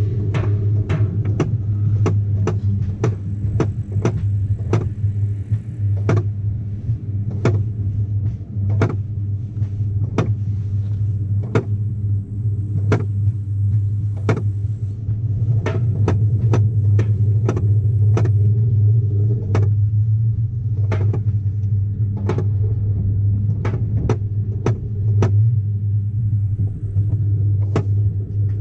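Mountain Innovations Rollbob alpine coaster sled rolling down its steel track: a steady low rumbling hum of the wheels, with sharp clicks at irregular intervals, about one or two a second, as the wheels pass over the track joints.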